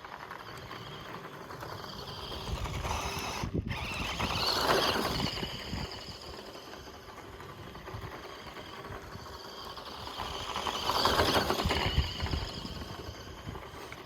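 1:14-scale Audi RS Q e-tron radio-controlled car driving over dirt: its small electric motor whines and its tyres run on loose ground. It grows louder and fades away twice, about four seconds in and again about eleven seconds in.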